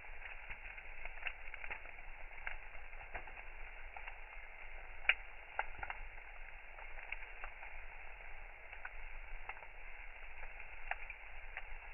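Wood bonfire crackling: irregular sharp pops and snaps over a steady hiss, with the loudest pop about five seconds in.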